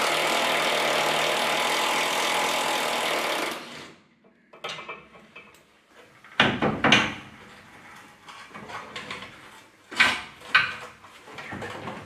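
Cordless impact wrench running on a long extension bar, undoing a front subframe bolt, for about three and a half seconds before it stops suddenly. After that come scattered metallic clanks and knocks as suspension parts and tools are handled.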